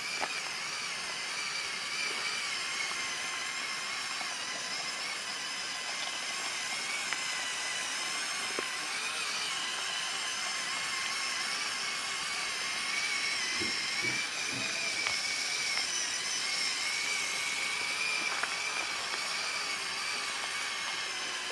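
Electric motors and gear trains of a LEGO Technic 42129 Mercedes-Benz Zetros trial truck whining steadily as it drives, the pitch wavering a little with the load, with a few light knocks about two-thirds of the way through.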